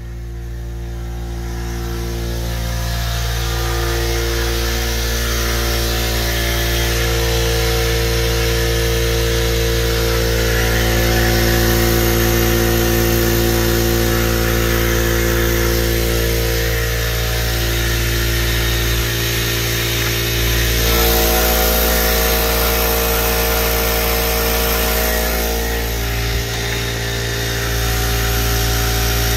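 Electric vertical-tank air compressor running steadily, its motor and pump giving a constant hum with steady tones. It grows louder over the first few seconds, then holds.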